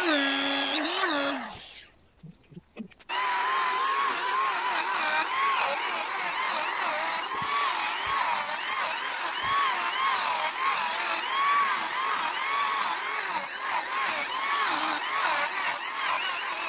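Handheld electric rotary grinder with a small burr, running against birch wood. Its motor pitch wavers up and down as it is pressed into the carving and eased off. It cuts out a couple of seconds in, then starts again about a second later.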